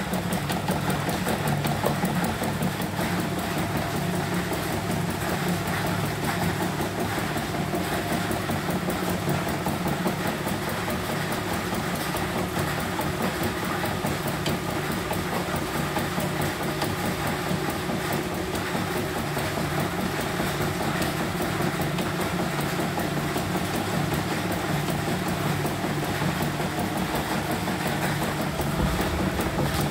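CNY portable embroidery machine stitching a design, its needle mechanism running in a steady, fast run of strokes. It is running smoothly and no longer snagging, after a fault of irregular stitching caused by built-up dirt.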